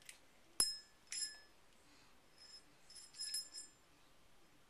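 Small bell ringing in a few short, irregular jingles: a sharp strike about half a second in, another shortly after a second, and a brief cluster past three seconds.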